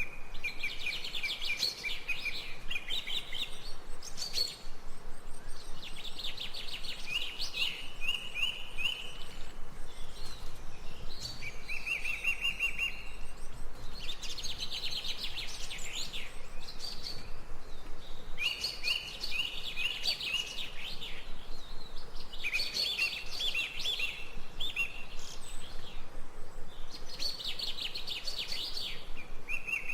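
A songbird singing the same short song over and over, about every three to four seconds. Each phrase is a quick run of high chirping notes ending in a lower, steadier series.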